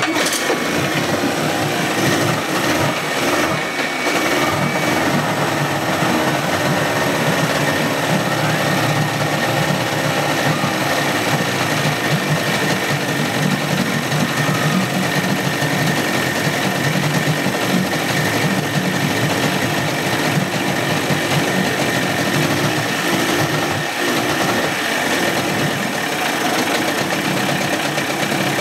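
2004 Johnson 30 hp two-stroke outboard engine running steadily, just started from cold.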